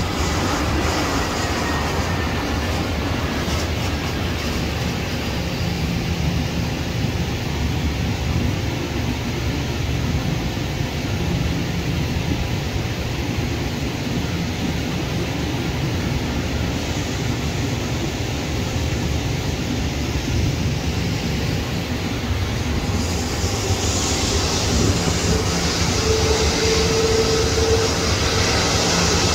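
Jet airliner engine noise: a steady rumble as an Airbus narrowbody lands and rolls out. About 23 seconds in it turns brighter and hissier, with a held whine, as a twin-engine Airbus A330 taxis close by.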